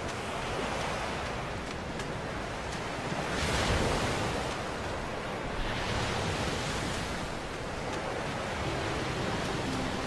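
Surf washing onto a beach: a steady rushing noise that swells louder about three and a half seconds in and again around six seconds. Soft music comes in near the end.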